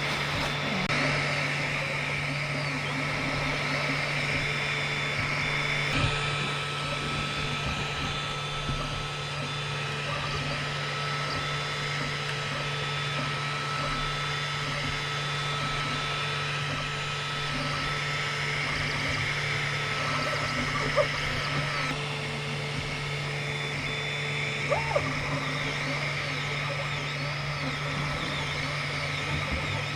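XVICO X3S 3D printer running a print: a steady fan hum, with the stepper motors whining in short rising-and-falling glides as the head moves, and a few light clicks. The sound changes abruptly twice.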